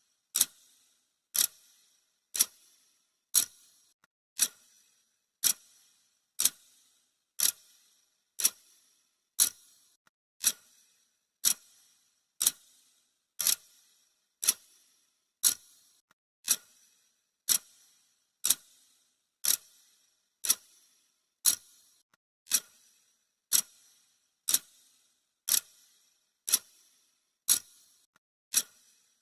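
Clock ticking sound effect, one sharp tick about every second, keeping a steady, even beat.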